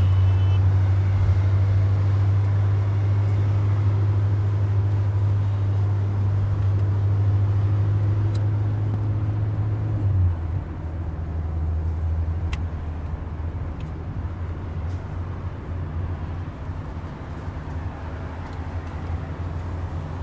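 A car's engine and tyre noise heard from inside the cabin while driving: a steady low drone that drops in level about halfway through, as the engine eases off.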